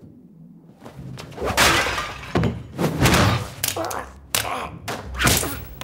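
Film fight sound effects: a rapid series of hard hits and thuds, beginning about a second in.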